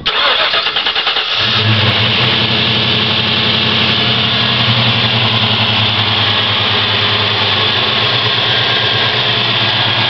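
Ford Mustang engine cranked by the starter and catching about a second and a half in, then settling into a steady idle with some ticking, which the owner takes for lifter tick.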